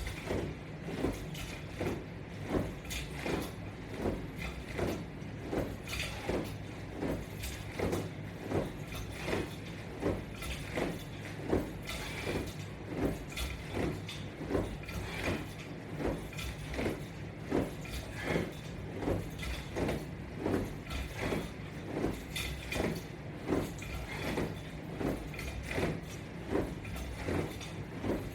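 Repeated rhythmic rubbing and creaking of resistance-band straps being worked through exercise reps, about one and a half strokes a second, over a steady low hum.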